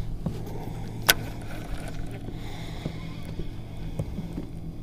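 Baitcasting reel engaging with one sharp click about a second in, then being cranked to retrieve an umbrella rig, over the steady low hum of a bow-mounted electric trolling motor.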